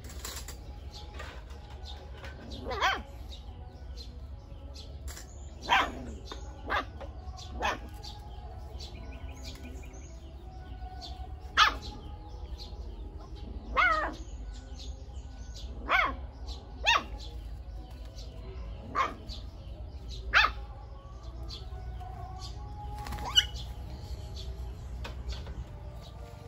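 A puppy barking and yelping in about eleven short separate calls, several of them falling in pitch.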